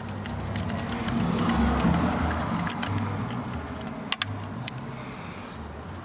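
A passing car's low rumble, swelling over the first couple of seconds and slowly fading, with a few light metallic clicks from a spark plug socket and extension being handled.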